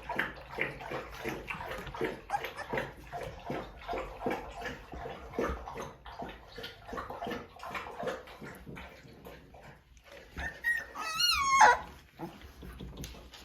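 Four-week-old American Bulldog puppies scuffling about, with many small scratches and clicks of paws and bodies, and about three-quarters of the way through one puppy gives a loud, wavering whine of about a second.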